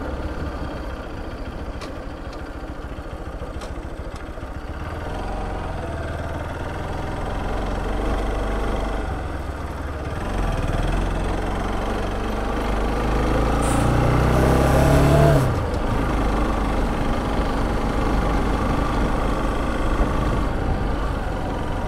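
Motorcycle engine running under way with a steady low hum; about 12 seconds in its note climbs, then drops off sharply a few seconds later.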